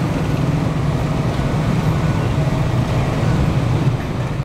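Steady rumble of motorcycle engines in close traffic at a railway level crossing, with a low engine drone throughout.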